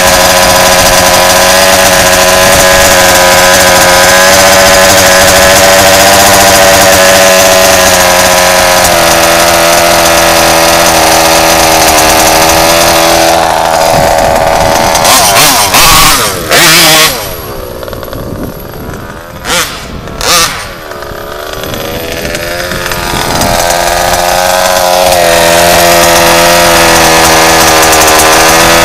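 RCMAX 90cc two-stroke petrol engine in an HPI Baja RC car running loudly and steadily, heard close up from a camera mounted on the car. About halfway through the engine sound drops away for several seconds, broken by a few short, sharp loud bursts, then the steady running comes back.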